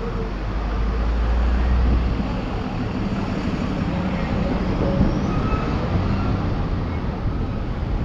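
Road traffic noise with wind on an exterior-mounted microphone. A lorry's engine rumbles loudly as it passes close alongside, loudest in the first two seconds.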